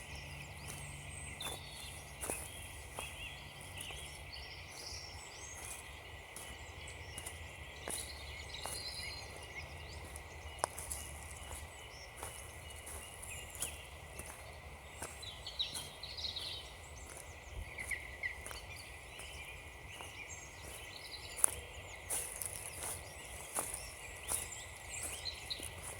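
Footsteps crunching on frozen leaves and frosty ground at a steady walking pace, with small birds chirping and twittering in the background.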